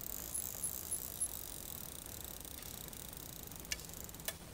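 Quiet outdoor creek-side ambience with a faint steady high hiss, four short high chirps in the first second, and two sharp clicks near the end.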